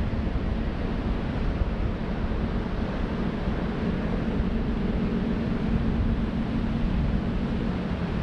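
Four SNJ Texans' Pratt & Whitney R-1340 radial engines and propellers droning steadily in formation flight, a continuous low drone with rumble beneath.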